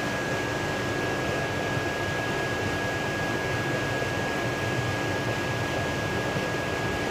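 Steady background hiss with a thin steady high tone running under it and no distinct handling sounds.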